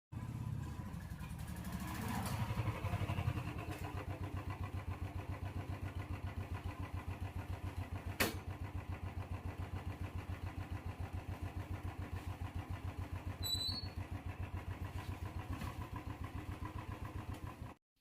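Motorcycle engine running with a steady pulsing beat, swelling briefly about two seconds in, then settling. A single sharp click about eight seconds in.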